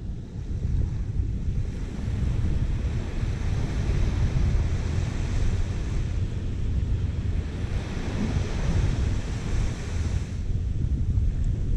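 Wind rumbling on the microphone over the wash of small ocean surf on a sandy beach, the hiss of the surf swelling and fading a couple of times.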